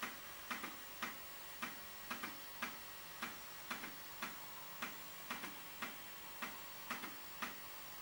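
Floppy disk drive clicking at about two clicks a second, some in quick pairs: the head stepping from track to track while a module loads from disk.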